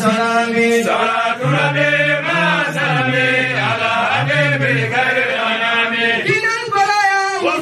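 A man's voice chanting Arabic devotional verses of blessing on the Prophet in a gliding melody with long held notes. Lower voices sing along beneath it for a few seconds in the middle.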